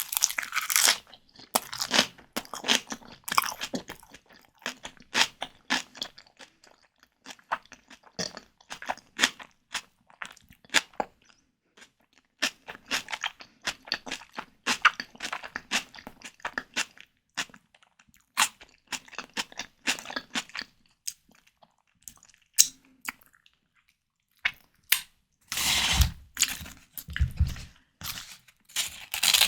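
Close-miked chewing of white tiger prawns: a steady run of short, crisp mouth clicks and crunches. About 26 seconds in comes a louder, denser stretch with low thuds.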